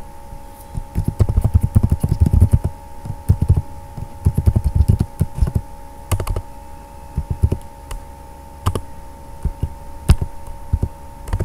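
Typing on a computer keyboard: quick runs of keystrokes through the first half, then a few single clicks spaced apart.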